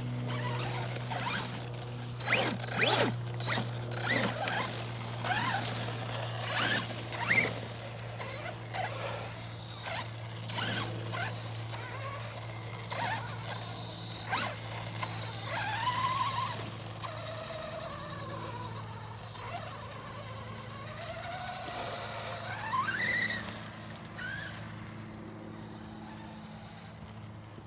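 Arrma Big Rock BLX RC truck being driven over rough trail ground: the brushless motor and gears whine, rising and falling in pitch with the throttle, over repeated clicks and knocks from the truck crossing rough ground.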